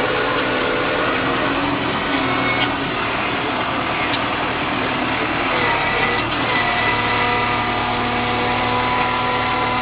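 Case IH JXU 105 tractor's diesel engine running steadily under load while pulling a plough, its note shifting slightly about halfway through.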